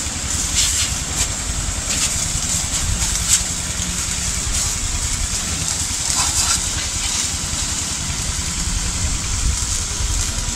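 Small engine of a power sprayer running steadily, pumping water through the hose, with a steady hiss of spray over it.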